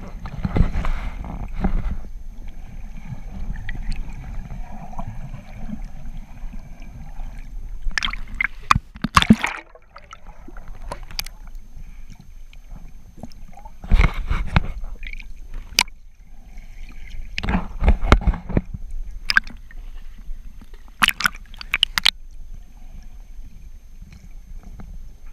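Water heard through a submerged camera: a steady low rumble of moving water with gurgling and sloshing. Several loud splashy bursts and a few sharp clicks come from swimming strokes and fin kicks near the surface.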